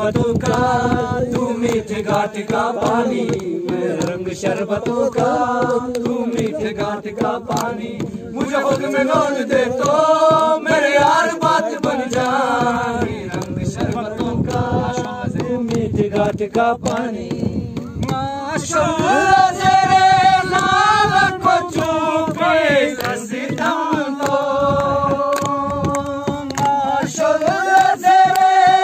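Balti folk singing in a chant-like style, the melody moving in held notes that step up and down.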